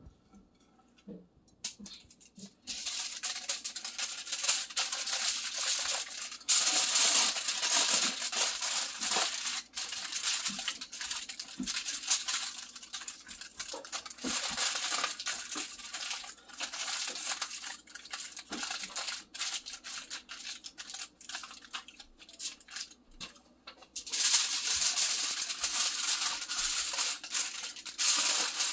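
Aluminium foil crinkling and rustling as hands fold and crimp it into a packet. It starts about two and a half seconds in and is loudest in long bursts a few seconds in and again near the end.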